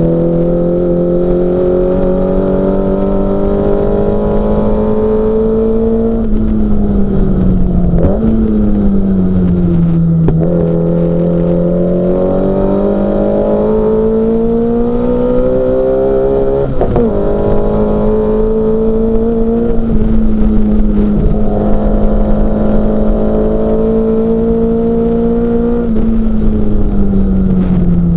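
Mini Cooper S racing car's four-cylinder engine running hard under load, its note climbing with the revs and breaking at gear changes about 8 and 17 seconds in, then falling near the end.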